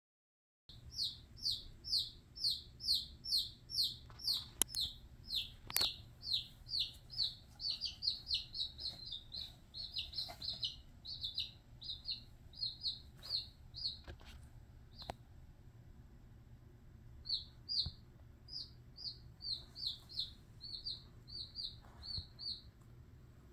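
Baby chick peeping loudly and over and over, each peep short, high and falling in pitch, about two a second at first and then quicker, with a short break about two-thirds of the way through before the peeps resume. These are a chick's distress calls as it is seized in a king snake's coils.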